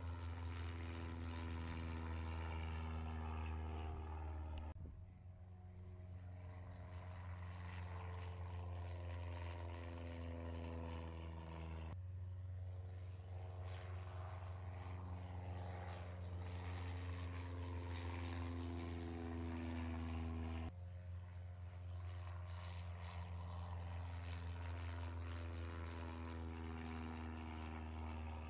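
Light propeller training plane flying over the airfield, its engine and propeller giving a steady drone that slowly rises and falls in pitch. The drone changes abruptly about five, twelve and twenty-one seconds in.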